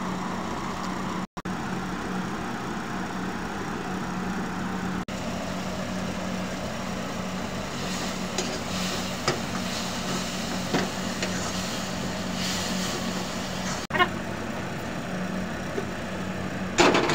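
A steady low hum and rush of background noise, with a few light metallic clinks of a steel ladle against a steel kadhai in the second half and a louder metal clatter near the end.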